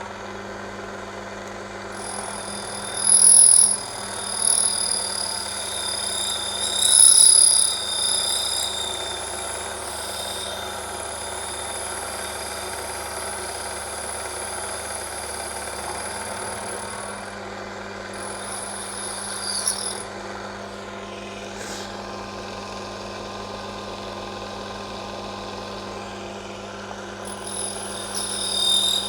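Small lathe running steadily while it turns a brass part. A high-pitched whine comes and goes over the motor hum and is loudest about three and seven seconds in.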